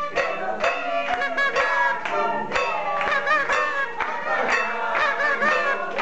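Music with a steady beat of about two strokes a second under a melody line.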